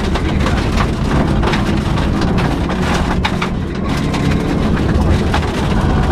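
Subaru Impreza rally car at speed on a gravel stage, heard from inside: engine and road noise, with many sharp clicks and knocks of stones hitting the underside.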